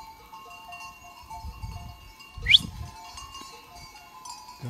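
Bells on a grazing goat herd clinking faintly and unevenly, with a short rising whistle about halfway through, the loudest sound.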